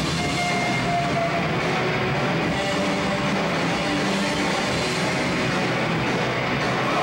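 Live thrash band playing loud and heavily distorted: a steady, dense wash of guitars and drums with no clear detail.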